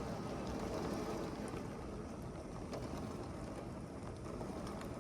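Heavy rain pouring down steadily, a dense even hiss with scattered drop ticks.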